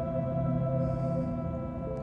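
Ambient background music: sustained, steady drone tones.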